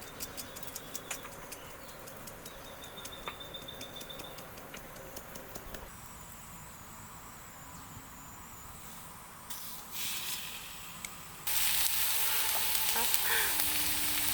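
Lamb ribs sizzling on a hot grill plate over a strong flame. The sizzle starts suddenly about eleven seconds in, after a quiet stretch with a few faint clicks.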